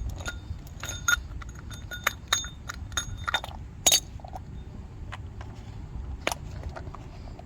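Metal clinking and tapping, as of hand tools or parts being handled during an oil change: a run of sharp ringing clicks, then a louder knock about four seconds in and a few scattered clicks later.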